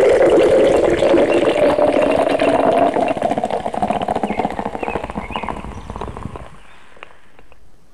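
A drink poured from an aluminium can, the liquid gushing and splashing into a vessel with a slowly rising pitch as it fills. It tails off and stops about six and a half seconds in.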